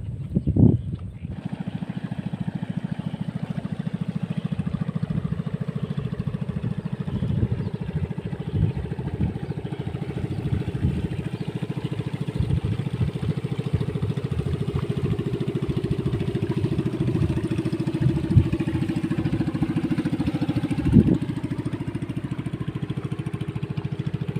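A small boat engine running steadily with a fast, even beat. Its pitch sags and recovers in the second half. There is a knock about a second in and another near the end.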